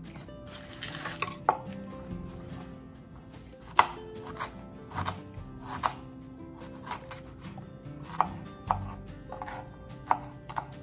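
Kitchen knife slicing fresh ginger and garlic cloves on a plastic cutting board: sharp, irregular knocks of the blade hitting the board, roughly one a second.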